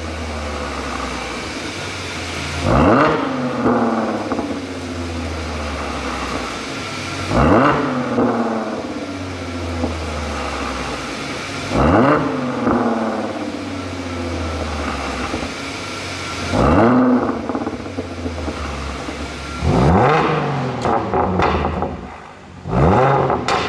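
Audi A7 3.0 TFSI's supercharged V6 idling and revved in short blips about every four to five seconds, closer together near the end; each blip falls back to idle with exhaust pops and crackles from a pop-and-crackle tune.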